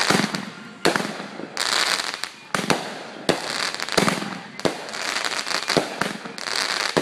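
Aerial fireworks bursting in quick succession, with a sharp bang about every second and hissing, crackling trails between the bangs.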